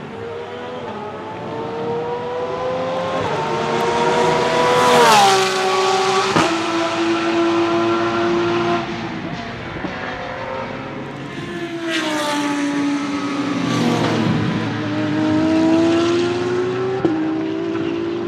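Porsche 992 GT3 R racing cars, their naturally aspirated 4.2-litre flat-six engines at full throttle on track. The engine note climbs for about five seconds and then falls sharply as a car goes by. It later drops and climbs again through gear changes.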